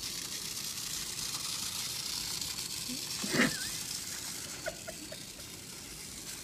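A battery-powered GeoTrax toy car whirs steadily as it runs along its track. A brief louder knock comes about three and a half seconds in, and a few light clicks follow.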